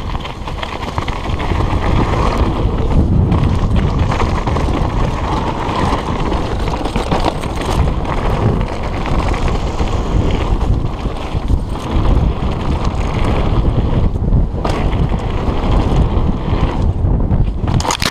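Mountain bike descending a gravel downhill trail at speed: steady wind buffeting the camera microphone over the rumble and rattle of tyres and bike on loose stones. Near the end comes a sudden loud clatter as the rider crashes.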